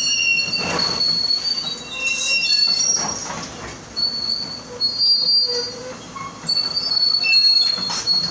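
Hydraulic excavator at work with loud, high-pitched metallic squeals, several pitches overlapping, coming and going every second or two over the clatter of the machine.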